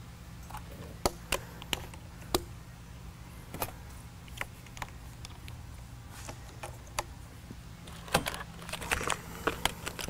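Scattered clicks and knocks of hands handling a Panasonic Toughbook CF-31 laptop as its power adapter cable is plugged into the side. A rattling cluster of clicks comes near the end, over a steady low hum.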